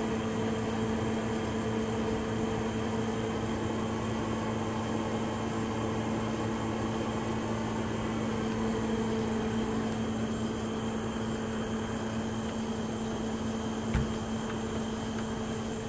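A steady machine hum, an even low drone that holds one pitch throughout, with a single faint click about fourteen seconds in.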